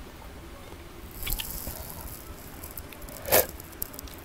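Mostly quiet, then about three seconds in one short, loud, wet mouth sound as a milk-soaked Maltesers chocolate ball is taken off a spoon into the mouth.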